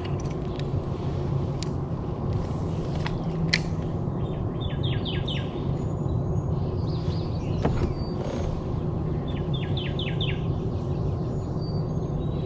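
A songbird calling twice in short runs of four or five quick chirps, over a steady low rumbling hum, with a few sharp clicks.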